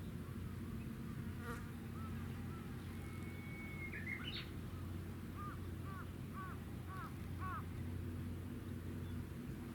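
Steady low hum of the helicopter destroyer Kaga's engines and machinery, with a bird calling a few short chirps about halfway through.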